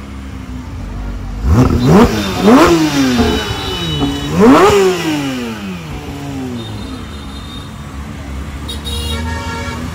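Porsche 992 GT3 RS's naturally aspirated flat-six revved in three sharp blips, two close together and a third about two seconds later, each climbing steeply in pitch and dropping back, then settling to a lower engine note.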